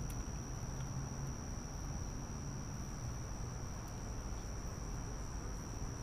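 Crickets trilling in one steady, unbroken high note, over a faint low background rumble.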